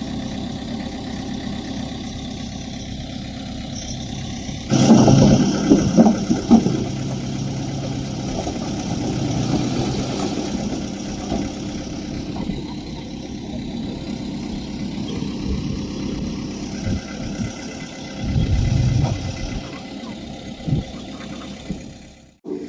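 Diesel engine of heavy earthmoving machinery running at a steady idle, then growing much louder about five seconds in, with irregular loud peaks for a couple of seconds before settling into a steady working note.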